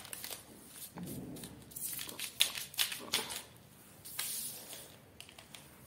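Plastic felt-tip pens clicking against each other and against the paper as a handful of them is shuffled and stood upright, with irregular light clicks and short rustles.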